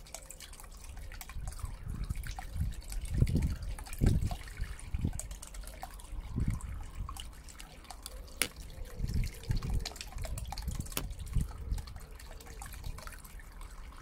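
A small submersible fountain pump in a tub of water, pushing a jet up through the surface so it bubbles, splashes and drips back, with a few stronger low splashes.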